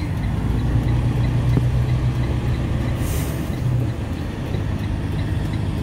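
Semi truck's engine running steadily while driving, heard from inside the cab as a low rumble. A brief high hiss comes about three seconds in.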